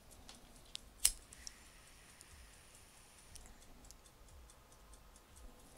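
A single sharp click about a second in, with a smaller click just before it and a few faint ticks later, over quiet room tone.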